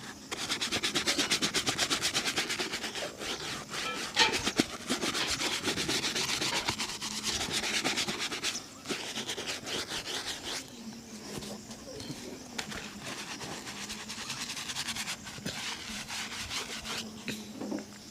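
A shoe being buffed during a shoe shine, with quick, even back-and-forth rubbing strokes. The strokes soften to quieter, slower rubbing about eight seconds in.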